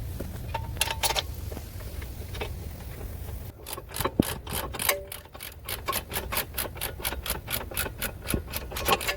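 Hand ratchet clicking rapidly and evenly, about five clicks a second, as a socket turns a bolt. The clicking starts a few seconds in and runs until near the end, with a few separate clicks before it.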